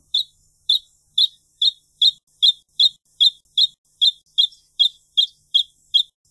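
Wrentit calling: a long series of short, sharp, high notes, about two and a half a second, speeding up slightly over the first second or two and then holding an even pace.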